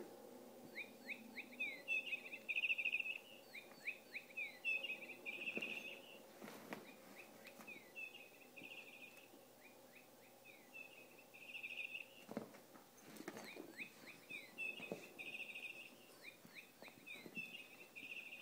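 Toy bird chirping: the same phrase of quick curved chirps running into a buzzy trill, repeated over and over, with a few faint knocks.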